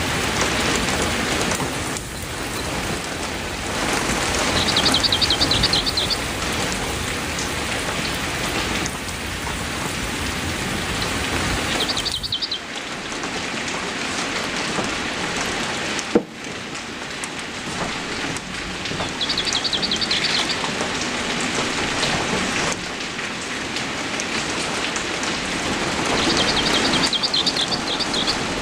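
Heavy rain falling steadily on surfaces, a dense even hiss. A short, high, rapid trill recurs about every seven seconds, four times in all, and a single sharp click comes about sixteen seconds in.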